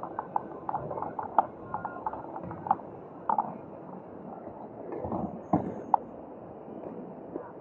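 Irregular clicks, rattles and short creaks from a power wheelchair and its camera mount rolling over sidewalk paving, over a steady bed of city street noise.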